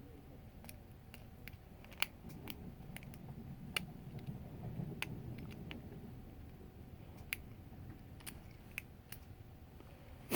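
Lock pick and tension wrench working inside a challenge lock: small, irregular metallic clicks and ticks as the pins are worked, over a faint low rumble of handling.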